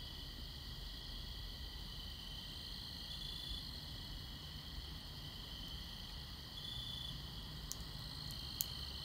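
Night chorus of crickets and other insects: a steady high trill at several pitches, with one voice briefly louder twice, and a few faint clicks near the end.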